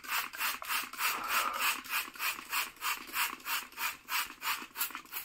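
Plastic trigger spray bottle pumped quickly, about three squeezes a second, each a short hiss of water mist, misting plain water onto a sponge cake layer to moisten it.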